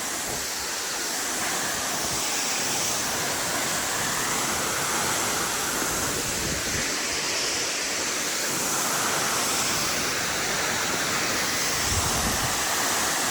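Waterfall at close range, a steady, unbroken noise of falling water with spray blowing over the spot.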